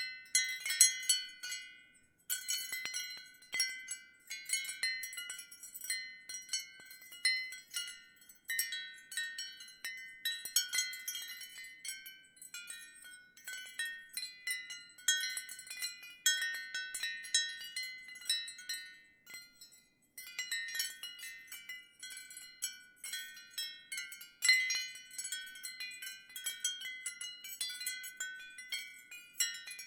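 Ceramic wind chime struck irregularly by the wind: clusters of light clinking strikes with short, bright ringing tones, pausing briefly a few times.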